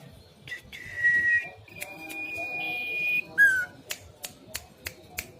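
Caged songbird giving whistled notes: a short note, a long steady one held about a second and a half, and a short falling note, amid sharp clicks. Its voice still has a hoarse rasp, the bird not yet fully recovered from an illness.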